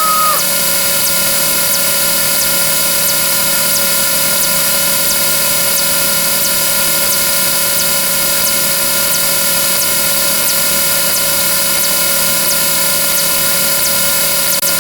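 A loud, steady drone of many sound effects playing over one another, with several held tones and a faint regular ticking on top.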